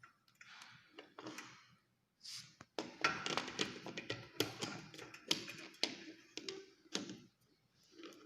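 Hand work on plumbing fittings: a few short scraping sounds, then a dense run of taps and knocks for about four seconds, starting about three seconds in.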